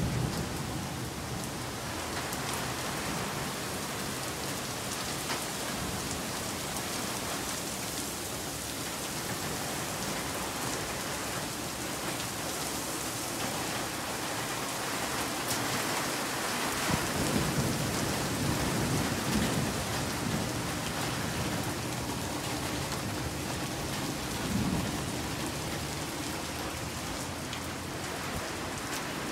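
Heavy rain pouring down steadily, with low rumbles of thunder swelling a little past halfway and again, more briefly, later on.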